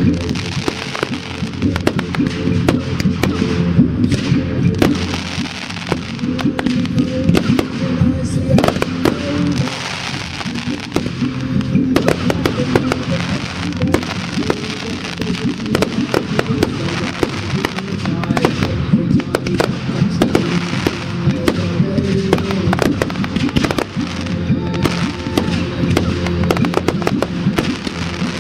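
Fireworks going off in rapid succession at a pyromusical display: many sharp bangs and crackles from bursting shells and ground fountains, over the show's music.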